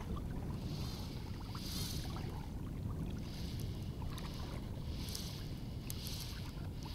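Fly reel's drag whirring in short repeated bursts as a hooked bonefish runs and takes line, over a steady rumble of wind on the microphone.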